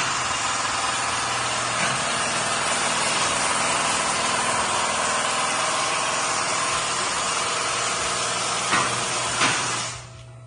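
Steady, loud machine noise with a hiss, over a low steady hum; two short knocks near the end, then the noise cuts off just before the end, leaving only the hum.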